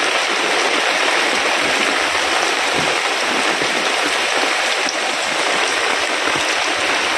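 Heavy rain pouring down, a loud, steady, dense hiss of falling water.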